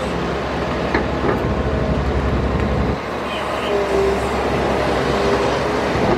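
Diesel engine of a Shantui Matador ME210 crawler excavator running under digging load. A couple of faint knocks come about a second in. The engine eases slightly about three seconds in, then picks up again with a steady whine.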